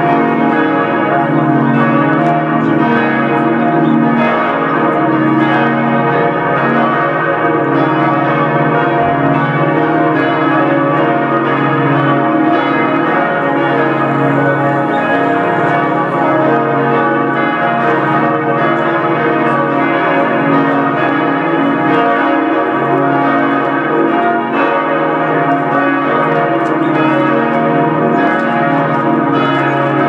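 Full peal of church bells from a bell tower: several bells swinging and striking in steady, overlapping, continuous ringing.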